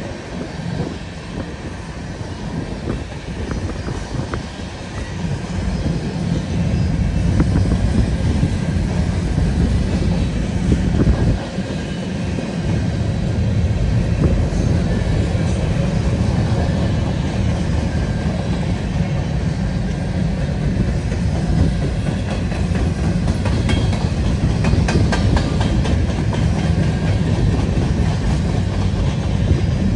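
Freight cars of a Canadian National manifest train rolling past: a steady low rumble of steel wheels on rail with clacking, growing louder about six seconds in. A run of sharp clicks comes a little past the middle.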